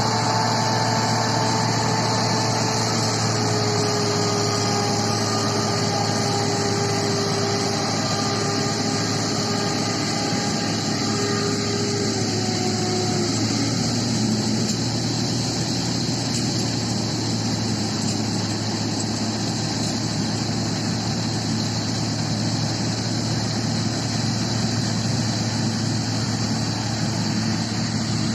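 John Deere rice combine harvester running steadily, its engine and machinery humming, with a whine that slides slowly down in pitch and then drops lower about halfway through.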